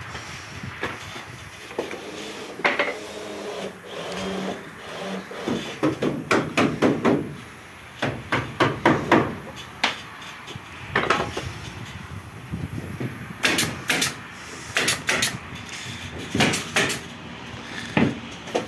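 Hammering on wood: sharp knocks in quick clusters of several strikes, with short pauses between the clusters, as boards are nailed up.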